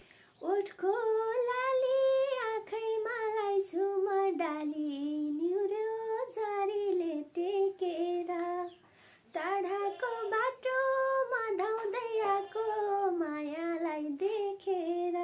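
A woman's voice singing a melody alone, without accompaniment, with a brief pause for breath about two-thirds of the way through.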